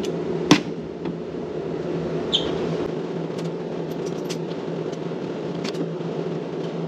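Pistol cartridges being pressed one by one into a magazine by hand, giving small scattered clicks; the sharpest click comes about half a second in. A steady low hum runs underneath.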